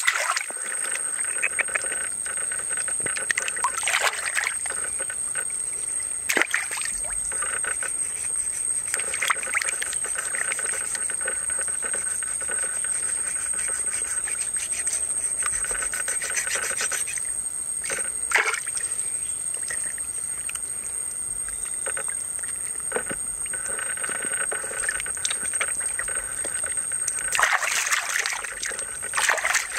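Water splashing and sloshing in irregular surges as a gutted catfish is worked and rinsed by hand in shallow water. A thin, steady high-pitched tone runs underneath.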